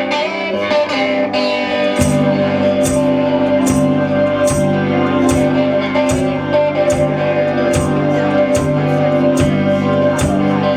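Live rock band playing an instrumental passage led by guitar. About two seconds in, the full band comes in with a steady beat.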